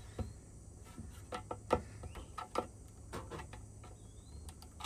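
Irregular light clicks and taps of small engine carburetor parts being pressed and worked into a tight fit by hand.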